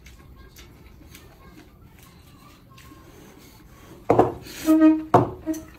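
Noodles being slurped loudly from a bowl, in two or three sharp slurps beginning about four seconds in, one carrying a brief whistling pitch. Before that there are only faint eating clicks.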